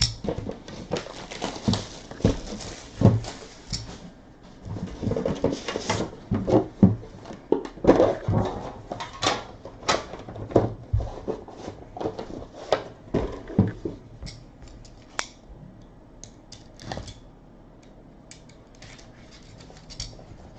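Trading-card packaging being torn open and rustled, with cards and sleeves handled in quick clicks and crinkles. The noise is dense for the first dozen seconds, then thins to scattered clicks.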